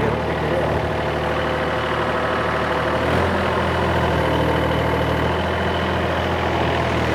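An excavator's diesel engine running steadily, its low note changing and getting stronger about three seconds in.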